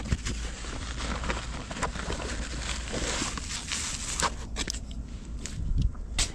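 Hand rummaging in a fabric bike pannier: cloth and plastic bags rustling and crinkling for the first few seconds, with scattered light clicks and knocks as a folding multitool is pulled out.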